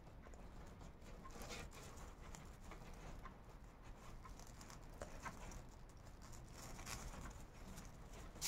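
Faint rustling and scratching of paper raffia yarn being handled and drawn through crocheted stitches with a sewing needle, with a sharp click near the end.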